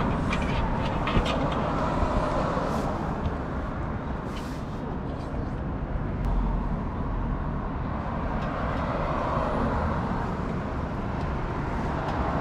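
Steady outdoor background noise with a low rumble, like road traffic going by.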